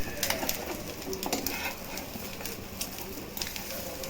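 Egg-soaked bread sizzling as it fries in a pan, with a steady crackle, and a bird cooing in the background.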